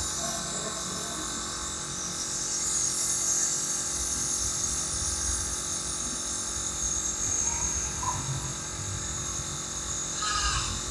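Nebulizer compressor running steadily, a small motor hum under a continuous hiss of the mist being pushed out, during a child's inhalation treatment for a lingering cough.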